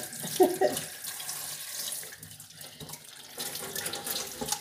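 Water running from a tap as hands are rinsed under it, easing off about two seconds in and picking up again near the end.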